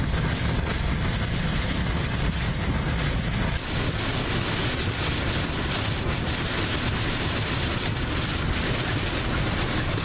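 Hurricane-force wind and rain: a loud, steady rushing noise with a heavy low rumble, and a slight change in the noise about three and a half seconds in.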